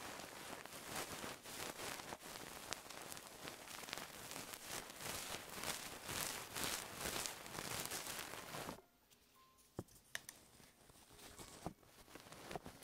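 Fast scratching and tapping of a feather rod on the microphone, a dense scratchy rustle full of small clicks for ASMR ear massage. It stops abruptly about three-quarters of the way through, leaving only a few soft isolated ticks.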